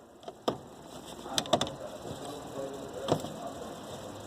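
Sharp plastic clicks and knocks from door trim pieces being pried and pulled loose: one about half a second in, a quick cluster around a second and a half, and another near three seconds.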